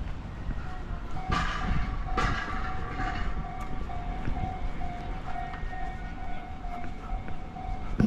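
Railway level-crossing warning bell ringing, a single-pitched ding repeating about twice a second, starting about a second in. Street noise runs underneath, with a couple of louder rushes of noise in the first few seconds.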